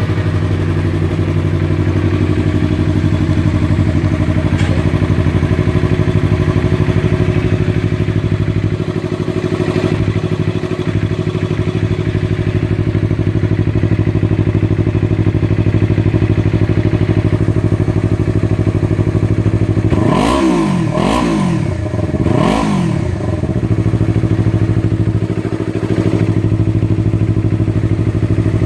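Yamaha YZF-R3's parallel-twin engine breathing through an aftermarket Akrapovič exhaust, idling steadily just after being started. About twenty seconds in it is revved three times in quick succession, then settles back to idle.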